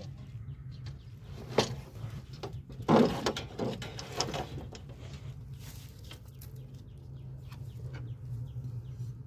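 A few scattered metallic knocks and clinks from spanners and bolts on the steel frame of a Yanmar combine harvester, over a low steady hum. The loudest knock comes about three seconds in.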